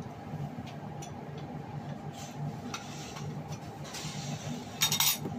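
Ladle scooping soup from a metal pot and pouring it into a bowl, with light knocks and clinks throughout and a louder clatter about five seconds in. A steady low hum runs underneath.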